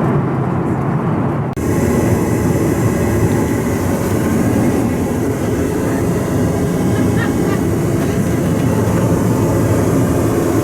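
Steady cabin noise of a Boeing 737-900ER in cruise: the rush of its CFM56 jet engines and the airflow over the fuselage. About a second and a half in there is a brief dropout, and the sound turns brighter with more hiss.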